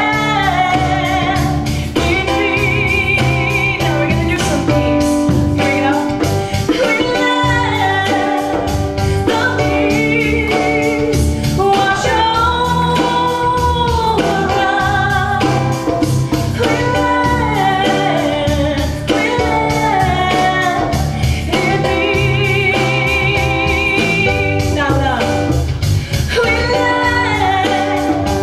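A woman singing a spiritual pop song with vibrato on held notes, accompanied by chords and bass on a Yamaha electronic keyboard played through a Roland keyboard amplifier.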